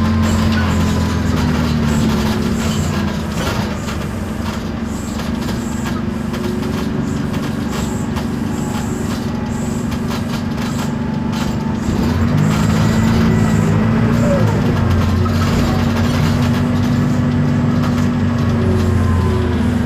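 Isobus City 1200 city bus with a MAN D0836 diesel and ZF Ecomat automatic gearbox, running under way and heard from on board. The engine drone eases off about four seconds in and builds again about twelve seconds in as the bus pulls, with faint drivetrain whine above it.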